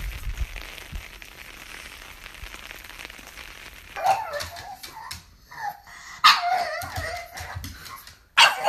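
A pug barking about four times, one call drawn out over more than a second, after a few seconds of steady hiss.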